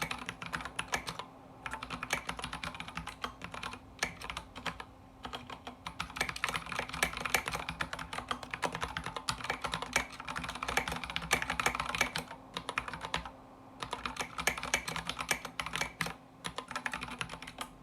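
Fast typing on a mechanical keyboard built from an MKB87 kit: dense runs of key clicks broken by brief pauses.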